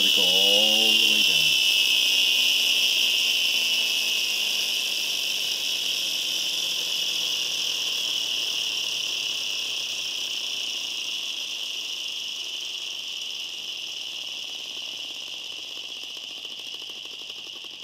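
Push-and-rev flywheel motor of a Max Mini tow truck toy spinning down freely after being revved: a high, siren-like whine that slowly falls in pitch and fades away.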